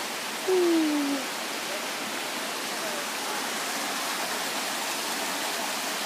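Creek water rushing over rocks and spilling into a pool: a steady hiss of running water. A brief falling voice sound comes about half a second in.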